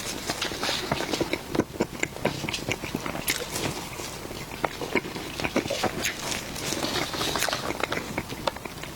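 Close-miked eating sounds: irregular wet clicks, smacks and crackles of someone biting and chewing soft food.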